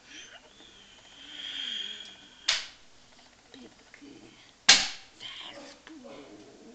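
A woman's voice with a high held tone about a second in, and two sharp smacks about two seconds apart, the second louder.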